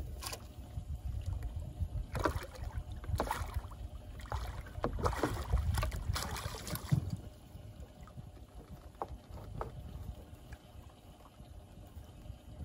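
Water splashing in bursts as a hooked blue catfish thrashes at the surface and is scooped into a landing net, with a low rumble underneath. The splashing dies down after about seven seconds.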